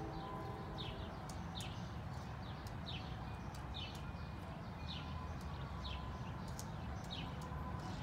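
A small woodpecker pecking at a peanut, giving sharp, irregular taps, while a bird repeats a short, high call that falls in pitch, about once a second.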